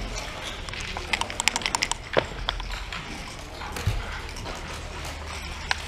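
Backgammon dice rattled in a cup and thrown onto a wooden board: a quick run of clicks a little over a second in, then a louder knock as the dice land. A few lighter clicks follow from checkers being handled.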